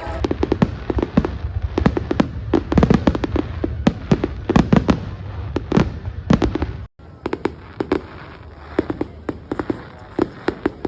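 Fireworks display going off: a rapid, dense run of bangs and crackling pops, with the sound cutting out for a moment about seven seconds in.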